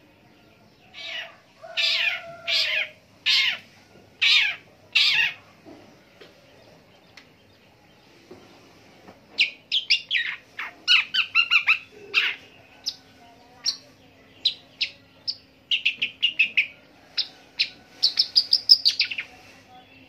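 Caged long-tailed shrike singing: about six harsh, scratchy calls in quick succession, then after a short pause a rapid run of varied short chirping notes, part of its long song imitating other birds.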